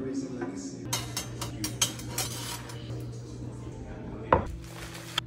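Kitchen clatter: dishes and utensils clinking in a quick run of clicks, then one louder knock of a wooden cutting board near the end.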